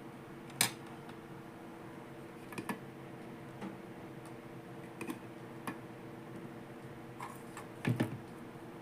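Small plastic toy pieces being handled and set down, making sharp clicks and taps every second or two, with a double knock near the end, over a steady low hum.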